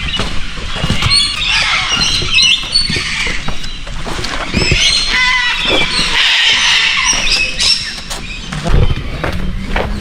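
Loud chorus of many overlapping high, squeaky chattering animal calls with scattered clicks.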